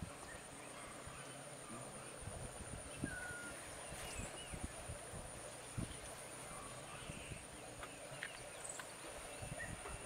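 Sri Lankan elephant feeding in shallow marsh water: irregular low thumps and sloshes as its trunk pulls up grass. A few faint bird chirps and a steady high-pitched hum run behind it.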